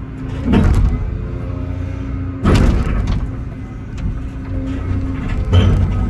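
Excavator diesel engine running steadily under load while the bucket breaks up a concrete pad. Three loud, harsh bursts of concrete breaking and scraping come near the start, midway and near the end.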